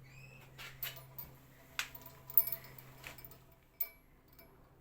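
Irregular light clicks and ticks from a rope-and-ring pull-test rig held under load while the knot tightens and creeps, with one sharper click about two and a half seconds in, over a faint steady low hum.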